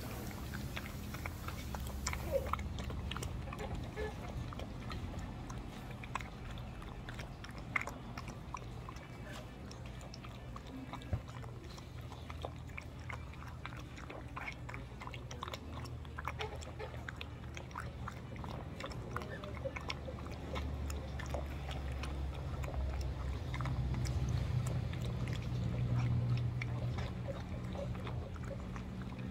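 A puppy eating from a stainless steel bowl, with irregular small clicks and crunches of chewing and of food against the metal. A low rumble swells in the last few seconds.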